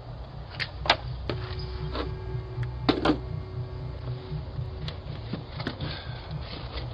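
Scattered knocks and clicks of packages being handled and pried loose from a frozen porch, about ten in all. They sit over the steady low hum of a doorbell camera's microphone.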